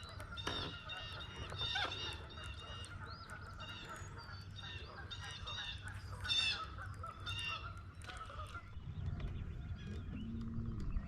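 A flock of birds calling, many calls overlapping and repeating, over a low steady hum; the calling fades about eight seconds in, leaving a low rumble.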